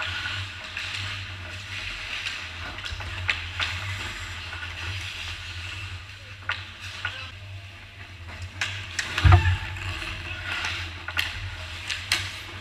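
Ice hockey skates scraping and carving on the ice, with scattered sharp clacks of sticks and puck, and one loud thump about nine seconds in.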